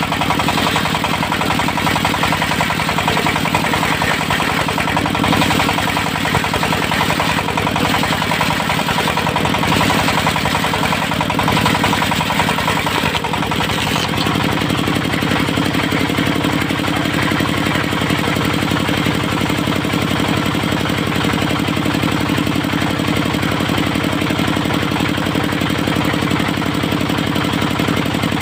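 Diesel engine driving a mobile circular sawmill, running steadily; its sound shifts about halfway through.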